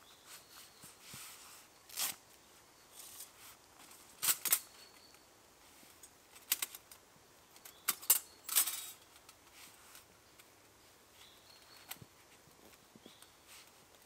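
Metal clinks and clacks of a Bushbox XL folding pocket stove being handled, unfolded and set on the ground. The sharp strikes come scattered, with the loudest clusters in the middle.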